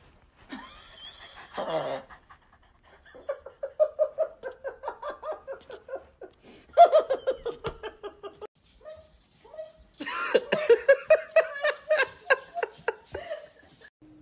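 Laughter in quick rhythmic bursts, about four or five a second, with runs that fall in pitch; a harder burst of laughing starts about ten seconds in.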